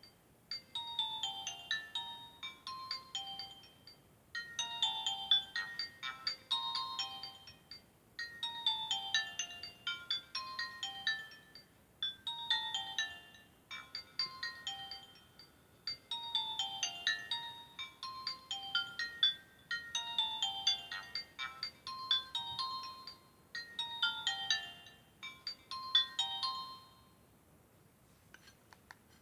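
Nokia 5030c-2 mobile phone playing a ringtone through its small loudspeaker: a short melody of falling note runs, repeated about every four seconds, seven times over, then stopping about 27 seconds in.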